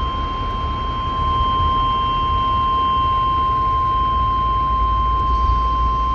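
NOAA Weather Radio 1050 Hz warning alarm tone: one loud, steady, unbroken beep over a low background rumble. It is the signal that a warning broadcast follows, here a severe thunderstorm warning.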